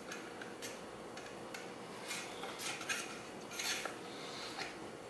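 MV Agusta F4 1000 fork spring being lowered into its fork tube: faint, scattered metallic clinks and scrapes as the steel coils touch the tube.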